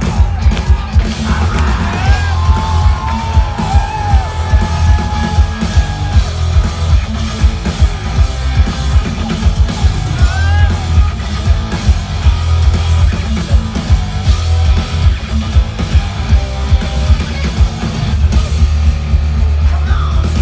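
Live rock band playing loud: distorted electric guitars over a pounding drum beat, with shouted vocals coming in and out.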